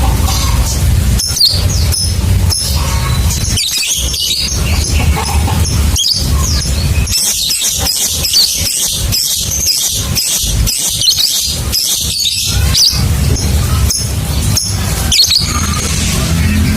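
Lovebird ngekek: a long, fast chattering trill of high, squeaky chirps, densest in the middle, over a steady low hum.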